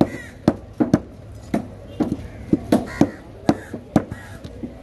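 A heavy curved fish-cutting knife cutting through a leatherjacket fish and knocking on a wooden chopping block in quick, irregular strokes, about two or three a second.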